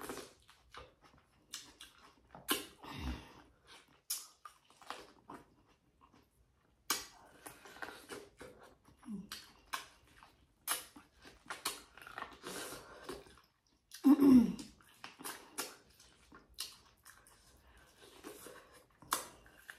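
A person eating corn on the cob close to the microphone: irregular chewing, wet mouth smacks and short crunchy clicks. About two-thirds of the way through comes a brief louder vocal sound, like a hum.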